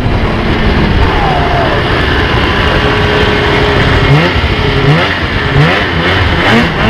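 Polaris IQ 600 snowmobile's two-stroke engine running under way, with a dense rushing noise for the first few seconds. In the second half the engine gives a series of short rising revs, about one every two-thirds of a second.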